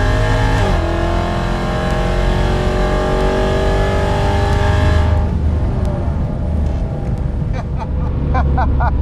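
ProCharged 5.7 Hemi V8 at full throttle down the drag strip, its pitch climbing steadily, with a gear change under a second in. About five seconds in the throttle is lifted and the engine drops to a lower, quieter run.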